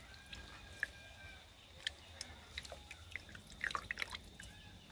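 Hands squeezing grated coconut in water in an aluminium pan to make coconut milk: faint, scattered wet squelches and clicks as the milk drips back into the pan.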